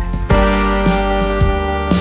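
Background music led by guitar, with chords strummed or plucked over a steady bass note and a chord change about a third of a second in.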